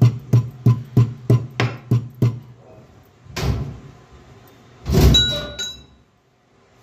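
Metal pestle pounding in a mortar, crushing spices for masala tea: a steady run of sharp knocks about three a second that stops after about two and a half seconds, then two heavier single knocks, the second with a short metallic ring.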